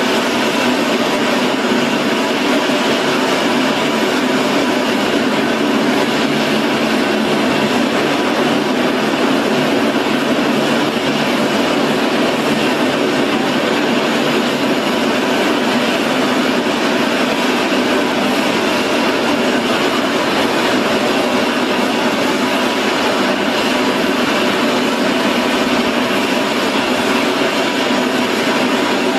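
Military transport aircraft engines running on the ramp: a loud, steady roar that holds unchanged throughout.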